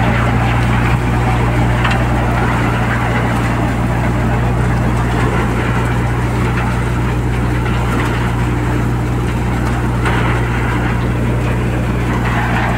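FAN groundnut stripping machine running steadily while it separates fresh peanut pods from the plants: a constant low machine hum under a steady noisy rush.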